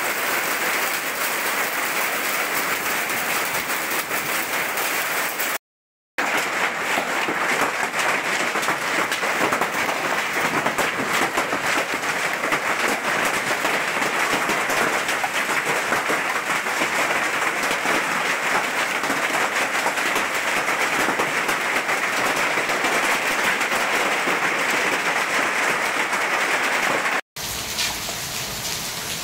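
Heavy rain and hail pouring down in a dense, steady patter. The sound cuts out for a moment about six seconds in and again near the end, then returns a little softer.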